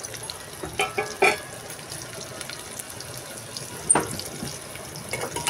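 Onion and whole spices (cumin, cardamom, cinnamon) sizzling in hot ghee in a pressure cooker: a steady hiss with a few sharp clicks about a second in and one near four seconds.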